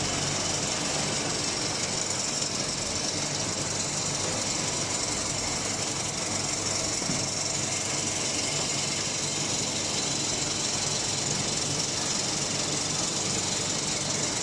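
Industrial machinery running with a steady rattling drone that holds at an even level throughout.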